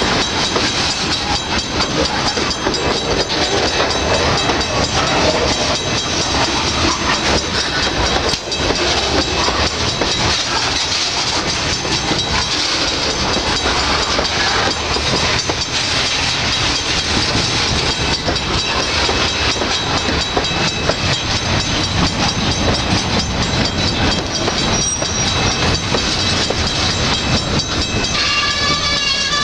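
Freight cars (tank cars, covered hoppers and boxcars) rolling past close by, a steady rumble with wheels clacking over the rails. Near the end a high pitched tone joins in.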